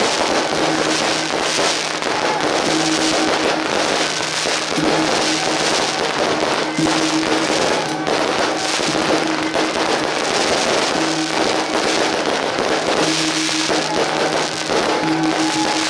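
Firecrackers crackling densely and without pause, over loud festive music with long held notes.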